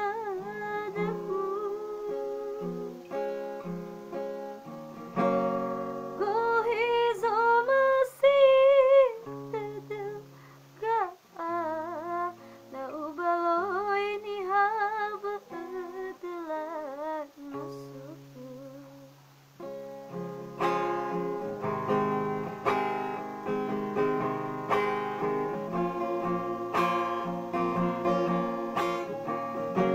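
A woman singing a melody with vibrato over guitar. About twenty seconds in, the voice drops out and strummed guitar chords carry on.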